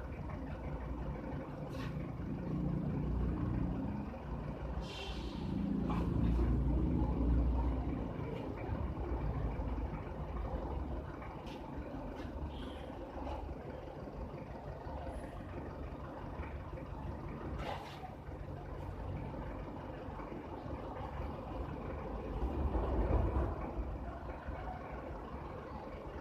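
Low engine rumble that swells three times, with a few scattered clicks and a brief hiss.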